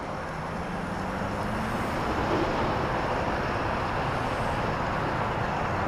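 Steady rushing rumble of an approaching diesel-hauled freight train, growing a little louder over the first two seconds and then holding.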